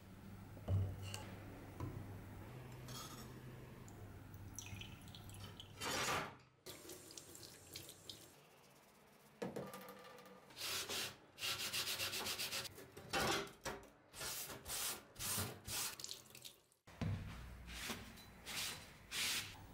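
Knife blade being washed under a running tap in a stainless steel sink, with a series of short, evenly spaced rubbing strokes as it is scrubbed. Near the end it is rubbed dry with a cloth. A low hum and a couple of sharp knocks come in the first few seconds.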